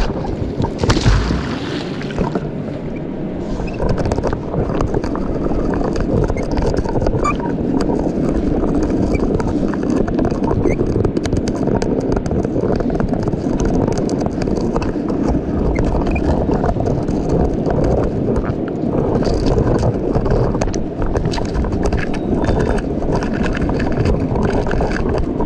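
Muffled rushing and churning of river water with scattered knocks and scrapes, as picked up by a camera in a waterproof housing taped to a magnet being dragged through the water. A heavy low thud comes about a second in.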